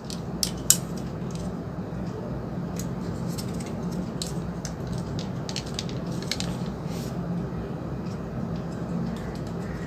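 Scattered light clicks and taps of a plastic TV remote's casing and parts being handled and pressed together during reassembly, two sharper ones within the first second, over a steady low hum.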